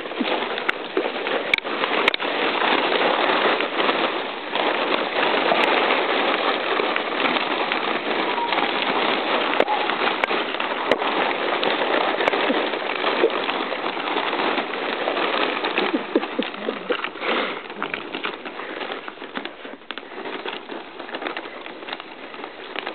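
Shiny plastic and foil wrappers crinkling and crackling continuously as a litter of Malinois puppies tug, chew and scramble through the pile, with a few sharp snaps; the rustling thins out over the last few seconds.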